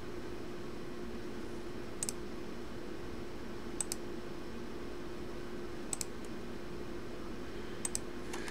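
Computer mouse clicking: four quick double clicks, about two seconds apart, over a steady low hum.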